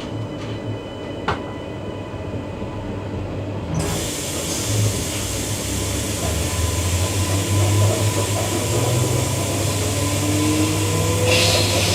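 Ride noise inside a moving Queensland Rail EMU electric train: a steady low rumble of the wheels on the track. A loud hiss comes in suddenly about four seconds in, and the noise keeps growing louder, with a faint rising whine near the end.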